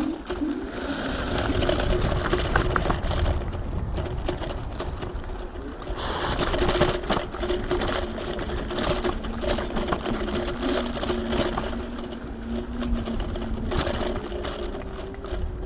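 TRBK-M2 electric hyperscooter riding off-road: its motor whines steadily, with a second lower whine, over a low rumble and frequent clicks and rattles from the rough ground.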